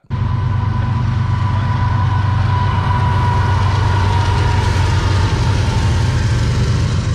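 CSX intermodal train passing close by, led by GE ES44AC and ES44DC diesel locomotives: a loud, steady low rumble with a thin high whine over it, as the locomotives give way to double-stack container cars rolling on the rails.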